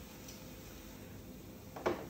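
Faint steady room hiss, then a single short knock near the end, like a kitchen utensil or dish being set down on a counter.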